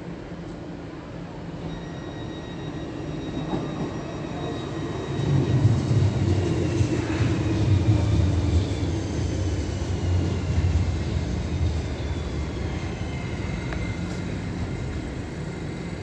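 Talent 2 electric multiple unit pulling into the platform: a low rumble of wheels on rail builds to its loudest midway and then eases as the train slows. Thin high whines slide down in pitch as it brakes.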